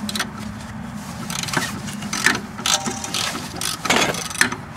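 A 17 mm socket ratchet and wrench working the eccentric cam bolt of a car's rear lateral link loose: irregular ratchet clicks and metal-on-metal knocks, with a low steady hum underneath.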